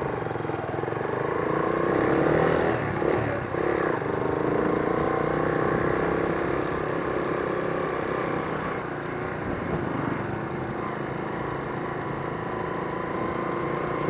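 Motorcycle engine running under way, heard through a microphone inside the rider's helmet, over steady wind and road noise. The engine pitch rises and dips a couple of seconds in, then holds fairly steady.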